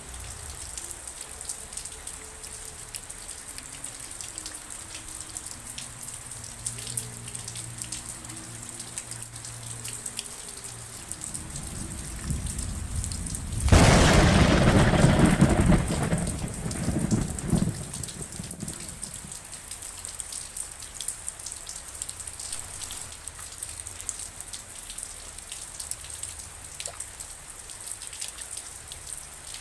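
Steady rain with many small drops pattering. About fourteen seconds in a loud, sudden thunderclap breaks in and rumbles for about four seconds before fading back under the rain.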